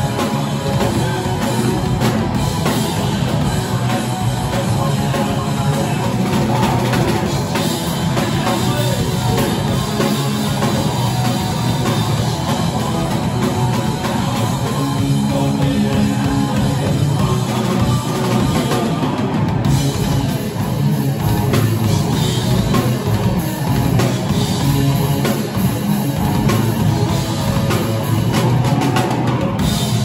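Live rock band playing at steady volume: electric guitars and bass through amplifiers over a drum kit.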